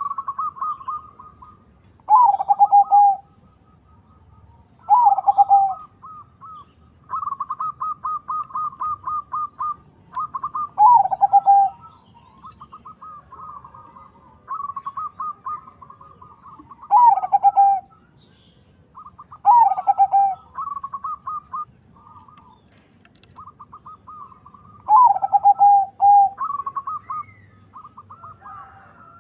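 Perkutut (zebra dove), a local-Bangkok crossbred bird, singing: bursts of quick, clipped notes followed by a louder, lower coo that falls in pitch, the phrase repeated about every three seconds.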